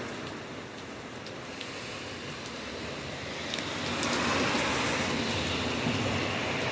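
Steady rain falling, mixed with the hiss of a vehicle's tyres on wet pavement that swells about four seconds in and stays up.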